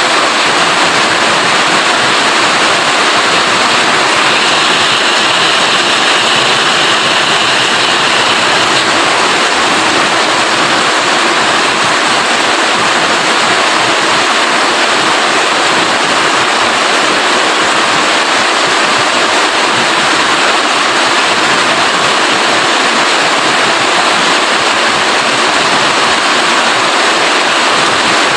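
Rain falling steadily, a dense even hiss with no let-up.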